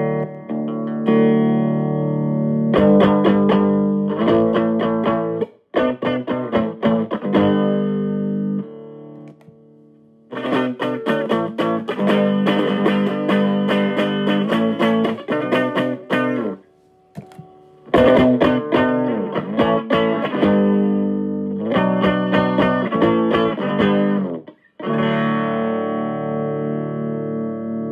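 Electric guitar played through a DOD FX20C stereo phaser pedal: strummed chords and picked phrases in several bursts with short pauses between them, the last chord left ringing.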